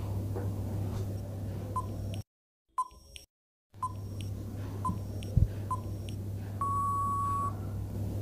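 Countdown timer sound effect: short electronic beeps about once a second, ending with one longer beep near the end.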